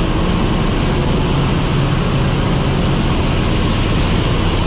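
Ship's engine room machinery running: a loud, steady drone with a low hum under a broad hiss, without a break or change.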